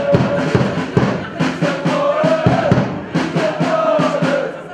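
Voices singing a chant together over a steady drum beat, about two beats a second.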